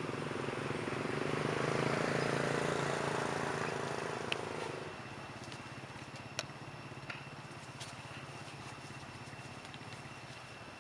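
A motor vehicle's engine passes by, growing louder for about two seconds and then fading out about five seconds in. A few sharp clicks follow.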